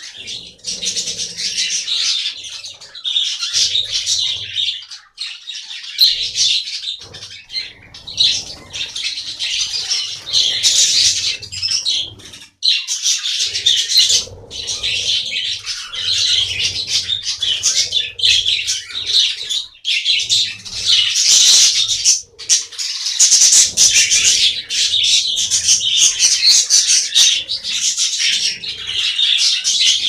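A flock of budgerigars chattering and warbling continuously, with wings fluttering now and then as birds fly about.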